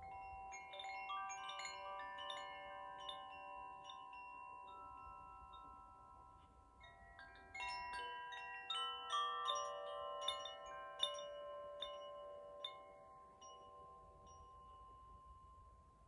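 French handheld wind chimes, their tuned rods struck from inside by the clapper as the chime is gently swayed, giving overlapping bell-like notes that ring on. A first flurry of notes comes at the start, a second, louder flurry begins about halfway through, and the notes then die away slowly near the end.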